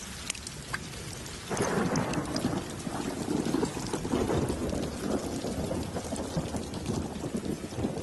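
Heavy rain falling in a thunderstorm, with thunder rumbling; the rumble swells in about a second and a half in and rolls on in waves.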